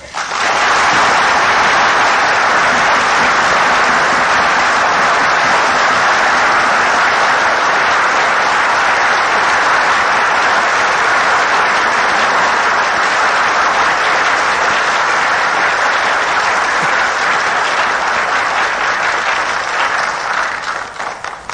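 Sustained applause from the assembled deputies of a national assembly, starting at once after a line of a speech, holding steady, and dying away over the last second or two.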